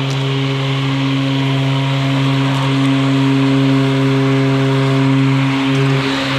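Toro Revolution battery-powered mower running steadily while cutting grass, a constant motor hum with a whir over it.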